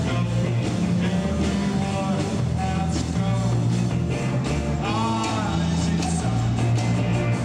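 Live rock band playing, with electric guitar, bass and drums.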